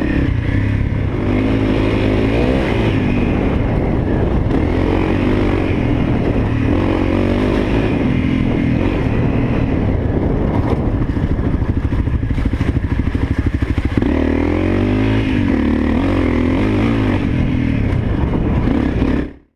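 Honda CRF250L's single-cylinder four-stroke engine running as the bike is ridden along a dirt trail, the revs rising and falling with the throttle. The sound cuts off abruptly near the end.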